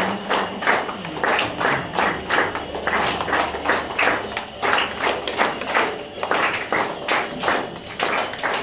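Hands clapping in a quick, steady rhythm, keeping time for a traditional folk dance.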